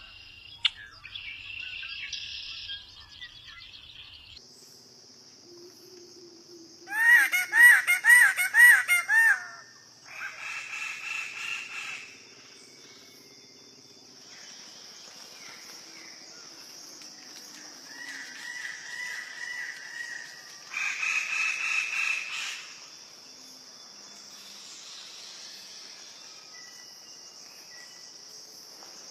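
Birds calling in several separate bouts. The loudest is a run of five quick arched, whistled notes about seven seconds in, with shorter call bouts later. A steady high-pitched drone runs underneath from about four seconds in.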